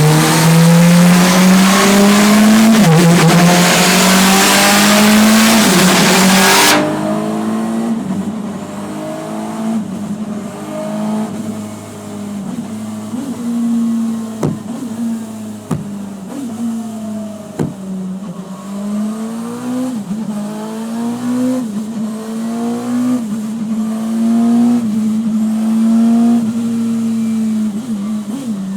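Radical SR3 1500 race car's engine running on a dyno, its revs wavering up and down around a steady level. A loud rushing hiss lies over it for about the first seven seconds and cuts off suddenly, and a few sharp pops come around the middle.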